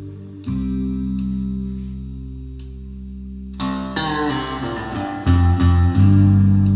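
Guitar music played back through Dali Ikon 5 mk2 loudspeakers: sustained deep bass notes, then a flurry of plucked notes about three and a half seconds in, and heavy bass hits near the end.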